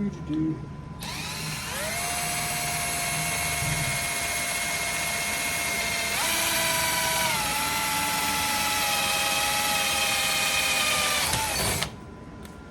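Power drill spinning up about a second in and drilling a hole through a welded metal mounting plate: a steady whine whose pitch rises and then drops partway through as the bit cuts, stopping shortly before the end.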